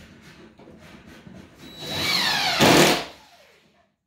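Cordless DeWalt impact driver running in a burst of just over a second, about two seconds in, driving a screw at a cabinet door's hinge.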